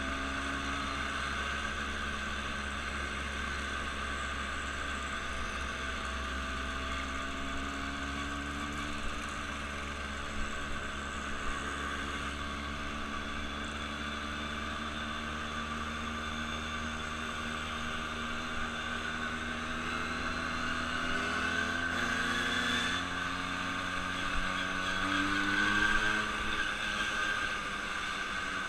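A vehicle's engine running steadily under way over constant travel noise. About twenty seconds in its note rises and grows louder, then eases near the end.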